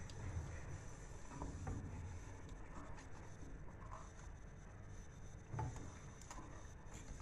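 Wooden spoon stirring milk and pudding mix in a stainless steel pot, faintly scraping and rubbing against the pot's bottom and sides, with one slightly louder scrape about five and a half seconds in.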